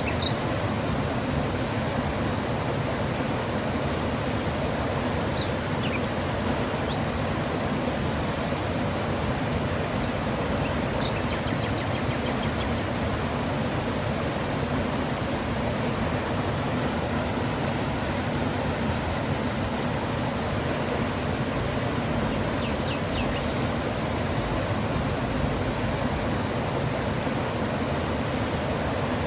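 Mountain river rushing steadily. A high-pitched chirp repeats at an even pace throughout, with a few other short chirps here and there.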